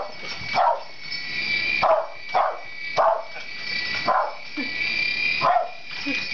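Small dog barking repeatedly, about eight barks, at a toy remote-control helicopter, whose electric motor and rotor make a steady high whine underneath.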